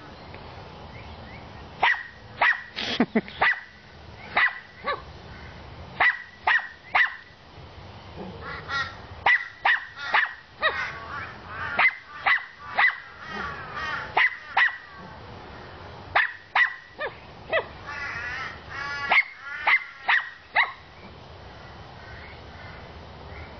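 Dog barking repeatedly in short bursts of two to four sharp barks, with quieter wavering cries between some bursts; the barking stops a couple of seconds before the end.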